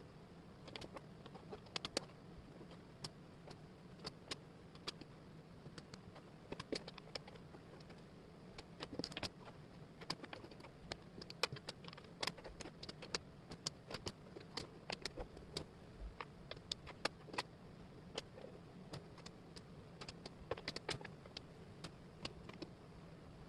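Wooden jigsaw puzzle pieces clicking and tapping as they are handled and fitted together: many quick, irregular small clicks over a low steady hum.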